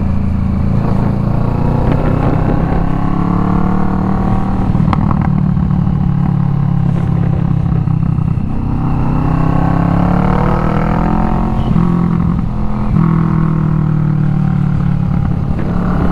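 Kawasaki Vulcan S 650 parallel-twin engine running through a Delkevic 16-inch slash-cut muffler while riding. Its pitch rises several times as the bike accelerates through the gears, then settles between pulls.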